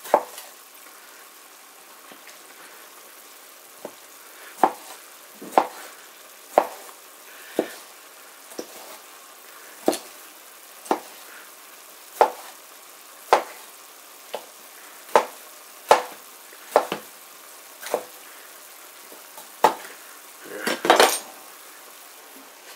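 Kitchen knife chopping a tomato on a cutting board, a sharp knock about once a second, over the steady sizzle of sliced onions frying in the pot. Near the end comes a quick run of louder knocks.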